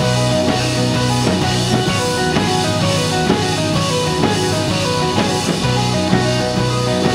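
A rock band playing an instrumental passage of a song: guitar and drum kit with a steady beat, without vocals.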